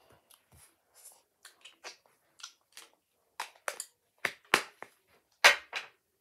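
An aerosol whipped-cream can being shaken and handled: a run of short, sharp sounds, faint at first and louder in the second half, the loudest near the end.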